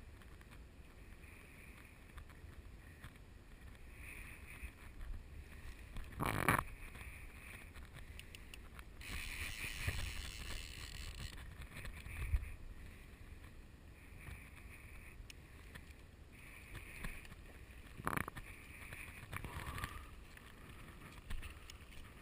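Wind buffeting the microphone over a flowing river, faint and steady. Two sharp knocks come about six and eighteen seconds in, and a short stretch of hiss follows the first.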